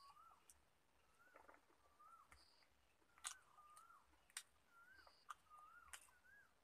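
Faint bird call: a short whistled note that rises and falls, repeated about every second. A few sharp clicks and smacks of someone eating by hand from a metal plate.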